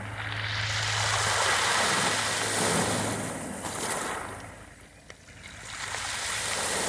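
Sea waves washing onto the shore: one wash swells and slowly recedes, dies down to a lull about five seconds in, and the next begins to build near the end. A faint low hum runs underneath.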